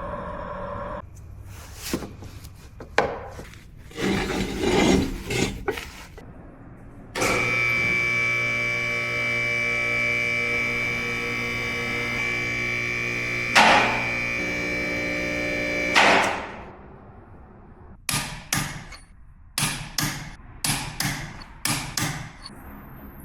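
Two-post car lift's electric hydraulic power unit running steadily for about nine seconds with a whine, framed by metallic knocks and clanks from the lift before and after.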